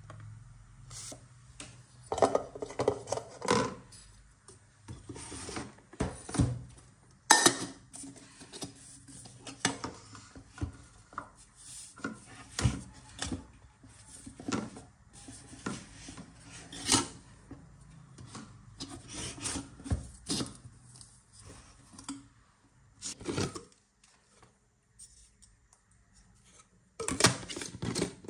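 Hands unpacking a cardboard gift box: a stainless-steel kettle and a pink bottle handled and lifted out, with card and plastic packaging rubbing and rustling and irregular light knocks and clinks.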